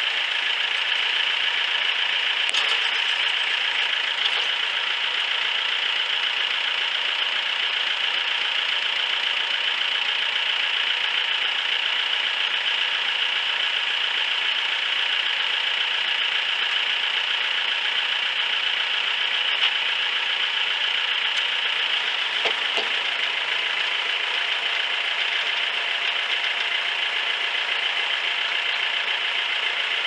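Farm tractor engine running steadily while working a front-end loader that lifts a chained log, with a couple of faint clunks.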